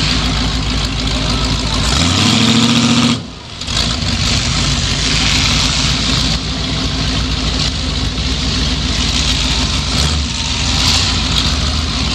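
Ford 351M V8 in a demolition-derby car running loud through open exhaust stacks, idling with a lumpy pulse. About two seconds in it revs up briefly, then the sound dips sharply for a moment before it settles back to idle.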